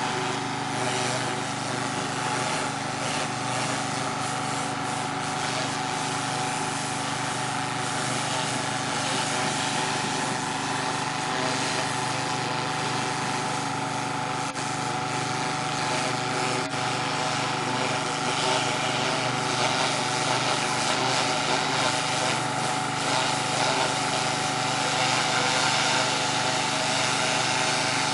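Pressure washer's small engine running steadily, with the hiss of its water jet on stone.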